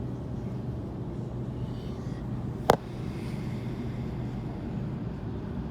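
Steady low rumble of a Sydney Trains Waratah A-set electric train running, heard from inside the carriage. One sharp click a little under three seconds in is the loudest sound.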